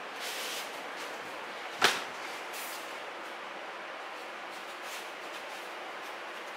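Soft rustling of cotton training uniforms and bare feet moving over dojo mats as two aikido practitioners turn through a wrist-hold movement, over a steady background hiss. One sharp slap stands out about two seconds in.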